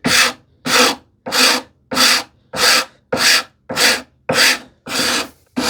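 Wood rasp filing a wooden edge in steady, even strokes, about ten strokes at roughly one every 0.6 seconds. The rasp is cutting aggressively even on its finer side, taking material down fast.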